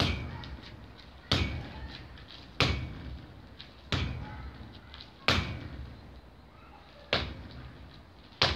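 Straight punches and crosses landing on a makiwara striking pad strapped to an upright pole: seven sharp thuds at a steady pace of about one every 1.3 seconds, each followed by a brief ringing tone.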